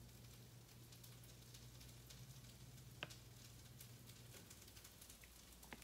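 Near silence: room tone with a faint low hum and a single soft click about three seconds in.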